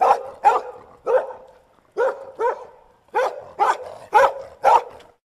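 A dog barking: nine sharp barks, mostly in quick pairs about half a second apart, stopping shortly before the end.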